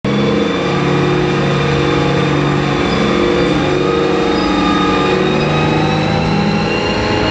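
The FV434 armoured vehicle's Rolls-Royce K60 two-stroke multi-fuel diesel engine running loud and steady with the vehicle standing still, its pitch creeping up slightly.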